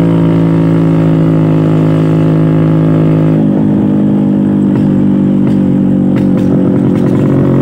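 Vintage Vespa scooter's two-stroke engine pulling uphill on a steady note. About three and a half seconds in, the revs drop and the note goes uneven for a few seconds, then it settles to a steady lower note near the end.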